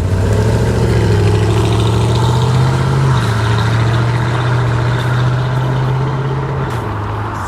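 Chevrolet SS's LS3 V8 running steadily at moderate revs, its pitch dropping a step about three seconds in and again near the end.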